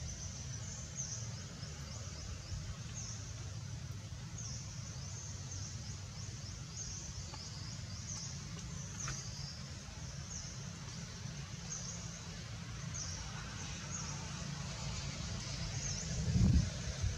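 Outdoor ambience: a steady low rumble with a short, high, falling chirp repeating about once a second. A louder low sound comes in near the end.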